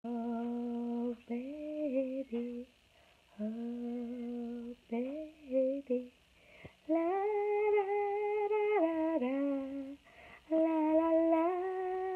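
A woman humming a simple tune in short phrases with brief pauses between them, going higher about seven seconds in.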